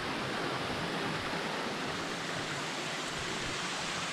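Steady rush of flowing water, an even hiss with no breaks or distinct events.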